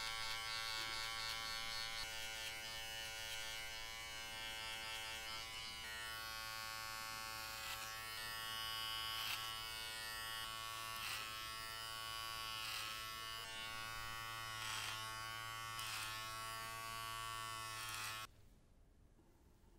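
Electric hair clippers buzzing steadily as they cut short hair. From about a third of the way in, the buzz changes with each pass, about every second and a half. The buzz cuts off suddenly near the end.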